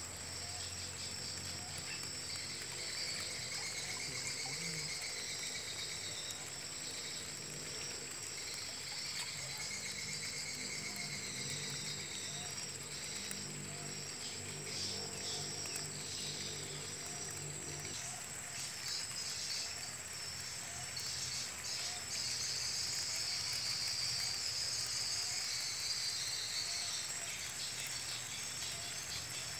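Insects chirring steadily in swampy grass: a constant high whine with a choppier, pulsing chorus just below it, swelling for a few seconds about three-quarters of the way through.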